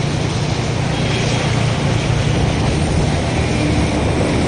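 A heavy vehicle engine running steadily with a constant low drone, over an even rushing noise.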